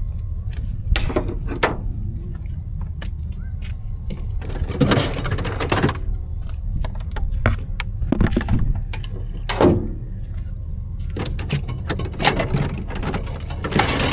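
Knocks, rattles and clatter of a vehicle's built-in fridge door and its contents being handled while mud crabs are taken out, over a steady low rumble.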